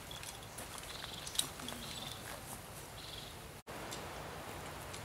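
Quiet outdoor garden background with a few faint, short high-pitched calls and one light tick about a second and a half in. The sound drops out for an instant past the middle.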